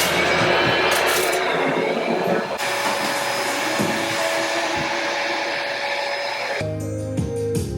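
Vacuum cleaner running with a steady rushing whine, music faint beneath it. About six and a half seconds in, the noise cuts off and music carries on alone.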